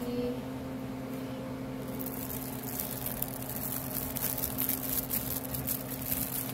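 Fabric cat tunnel rustling and crinkling from about two seconds in, over a steady low hum.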